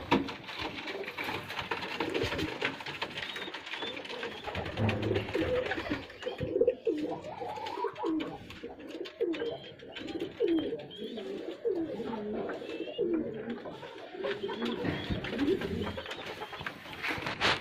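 Fancy domestic pigeons cooing, a long run of repeated, overlapping coos.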